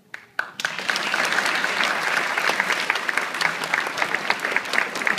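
Audience applause breaking out about half a second in, after a couple of single claps, with one person's claps close by standing out sharply above the rest.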